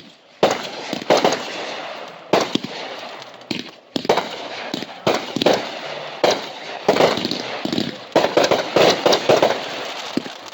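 Fireworks going off: a series of sharp bangs with crackling, about one a second at first, then coming in quick succession from about seven seconds in.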